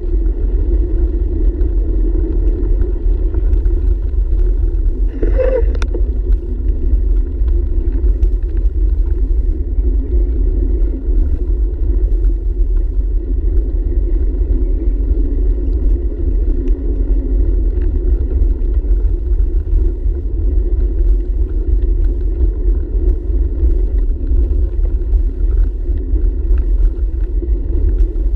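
Steady rumble of wind buffeting and road vibration picked up by a handlebar-mounted camera on a bicycle rolling over pavement. A brief higher-pitched sound comes about five seconds in.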